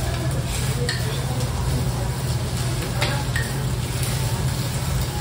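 Food sizzling in a hot stone bowl as it is stirred with a metal spoon. There are a few light clinks of the spoon against the bowl, about a second in and again around three and four seconds.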